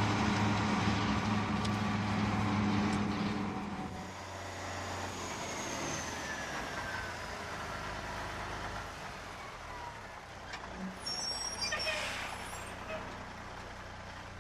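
Bus engine running steadily, dropping in level about four seconds in as the bus slows, with a faint falling whine, then a hiss of air brakes near the end as it comes to a stop.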